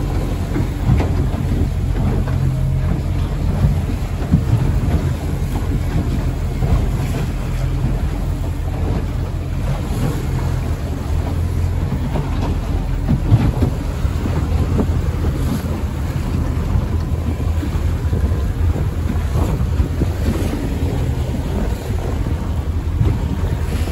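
A small boat under way through choppy water: a steady low engine hum under the rush and splash of waves, with wind buffeting the microphone.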